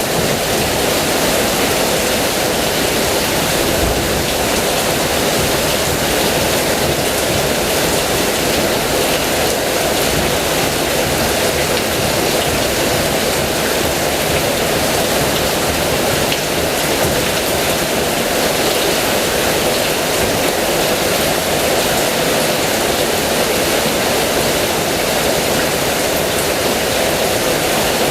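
Heavy rain falling steadily: a dense, even hiss that holds constant without letting up.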